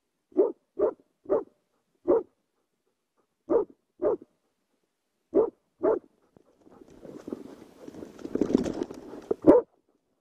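Plott hound barking at a bear: nine short, separate barks, mostly in pairs, with gaps between the pairs. About two-thirds of the way in, a few seconds of rustling and brushing noise as the dog pushes through undergrowth, just before the last bark.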